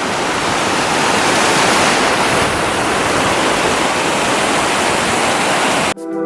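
Waterfall's roaring water rushing steadily, cut off abruptly near the end as music begins.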